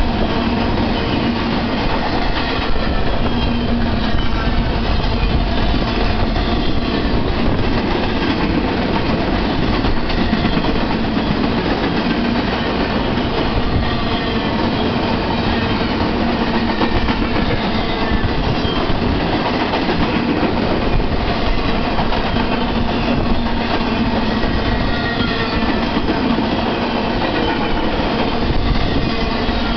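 Empty double-stack intermodal well cars of a BNSF freight train rolling past: a steady rumble and clatter of steel wheels on rail that goes on without a break.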